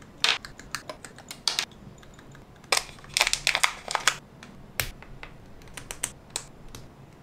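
Plastic model kit being built: sprue nippers clipping parts off the runner and hard plastic parts clicking together. A run of sharp separate clicks, densest in the middle and sparser near the end.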